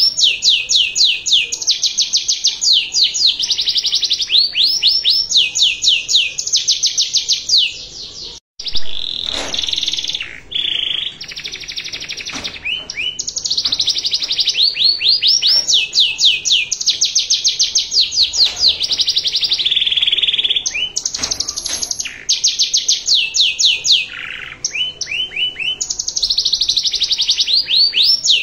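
Domestic canary singing a long, ornate song. It runs through phrase after phrase of rapid, high repeated notes and trills, each phrase at a different pitch. The song cuts out for a moment about a third of the way in.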